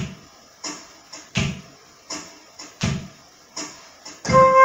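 Background music: a slow drum beat with a deep kick about every second and a half and lighter hits in between. A held electric keyboard chord comes in near the end.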